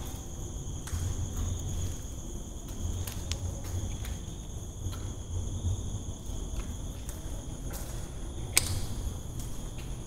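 Crickets trilling steadily and high, with footsteps and a few faint clicks, and one sharp click near the end.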